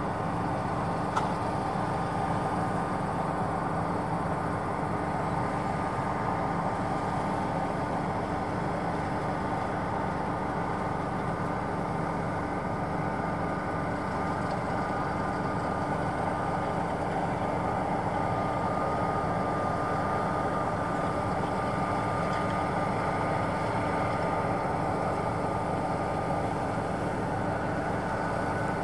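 Claas Tucano 570 combine harvester running steadily while harvesting, a constant engine-and-machinery drone with a thin steady whine that comes up more clearly past the middle.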